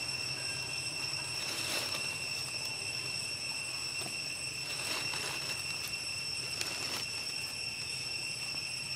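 A steady high-pitched insect drone, typical of cicadas or crickets, holding one unbroken tone with overtones above it. A few faint soft rustles come through, about two, five and seven seconds in.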